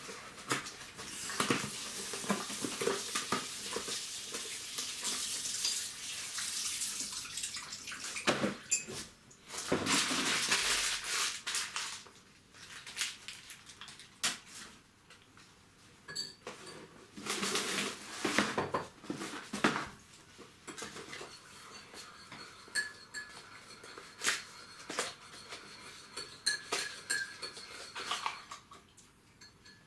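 Household kitchen sounds: dishes and cutlery clinking, with stretches of rushing noise like water running from a tap. A faint steady high tone is present in the second half.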